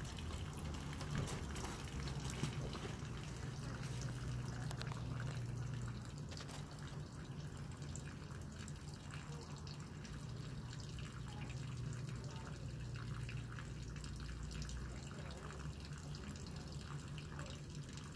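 Water trickling and dripping into a horse's water tub, with scattered small drips over a steady low hum.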